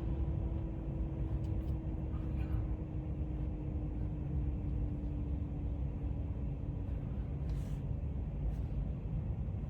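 Low rumble inside a Tesla Model X cabin, with a faint single tone that slowly falls in pitch and fades away near the end.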